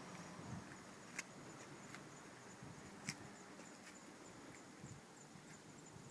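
Near quiet, with no engine running: a faint high insect chirp repeating in quick even pulses, and two sharp clicks about two seconds apart.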